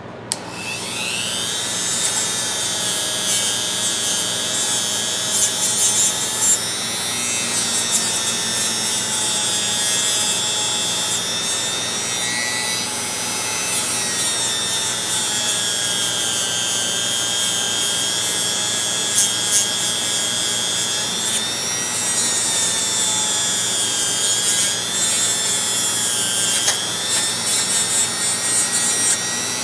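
Dremel rotary tool spinning up and running at high speed, grinding rust off an old steel ratchet. Its high whine sags in pitch a few times as it bears against the metal.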